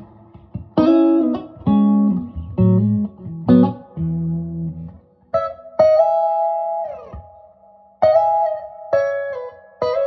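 Electric guitar played through a Two-Rock Bill Krinard East Cliff Drive tube amp head and speaker cabinet. Four chords ring out in the first few seconds, then higher single-note lead lines follow, with one bent note falling in pitch around seven seconds in.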